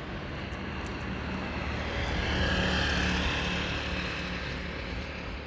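A passing engine: a steady low hum and rushing noise that swells to a peak about three seconds in, then fades.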